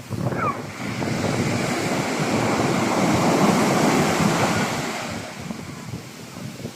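Sea waves breaking on a shore: one wave's wash swells over the first few seconds, peaks about midway, then fades, with wind on the microphone.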